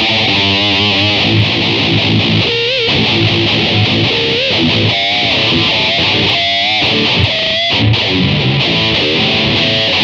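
Distorted electric guitar playing a lead passage, with sustained notes held in wide vibrato and bent over low notes. The guitar is recorded direct from a multi-effects unit into an audio interface, with no microphone on an amp.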